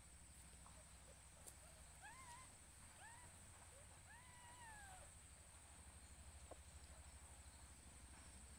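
Young nursing kittens mewing faintly, three thin high calls that rise and fall, the last one longer and trailing down.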